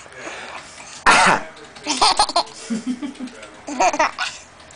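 An adult makes loud, fake coughing noises, the loudest about a second in, and a baby laughs back in short bursts of laughter.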